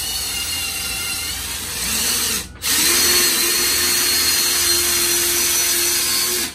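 Cordless power drill running into a hard wall while mounting curtain-rod brackets, a steady whine over grinding. It stops briefly about two and a half seconds in, then starts again and runs steadier and louder until it cuts off at the end.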